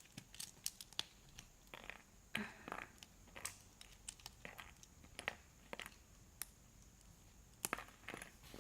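Small plastic Lego pieces being handled and picked out, giving faint, irregular clicks and short rustles.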